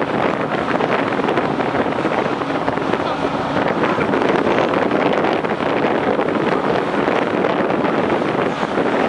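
Steady wind buffeting the microphone on the deck of a passenger ferry underway, over the even rush of the boat's running noise and water.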